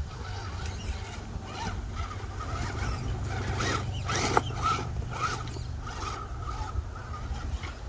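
Electric RC rock crawler's motor and gears whining in short throttle bursts as it climbs a pile of bricks, with a couple of sharp knocks from its tires and chassis against the bricks about midway.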